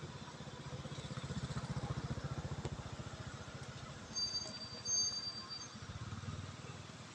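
An engine running off-screen with a fast low pulsing, growing louder about a second in and easing off after three seconds, then swelling again near the end. A thin high whistling tone sounds for about a second and a half partway through.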